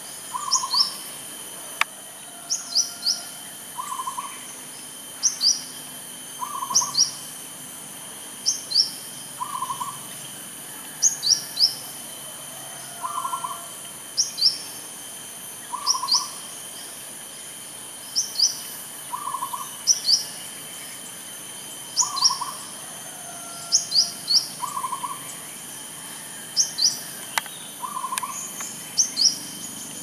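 Zebra dove (perkutut) cooing in short, rough double notes, repeated every two to three seconds. A second bird's quick, high, downward chirps in twos and threes come in between.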